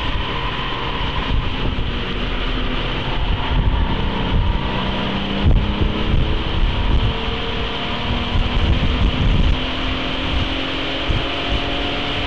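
A 1996 VW GTI VR6's 2.8-litre narrow-angle V6 pulling at track speed, heard from inside the cabin over wind and road rumble. The engine note climbs slowly in the second half as the car accelerates.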